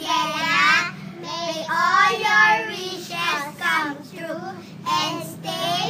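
Young girls singing together in high child voices, in short phrases with brief breaks.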